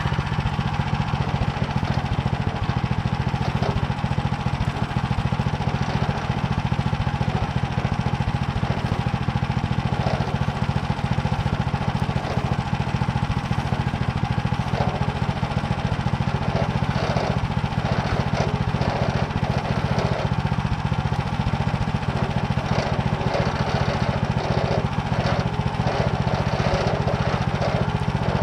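Motor Sich rotary tiller's small engine running steadily under load as its tines mill barley stubble, with scattered light knocks.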